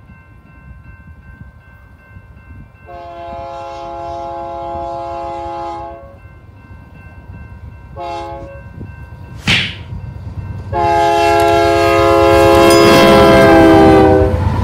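Freight locomotive's multi-chime air horn sounding a long, a short and a long blast. This is the closing pattern of a grade-crossing signal. The last blast is the loudest as the train draws close, with a brief sharp crack just before it, and the rumble of the locomotive and wheels swells near the end.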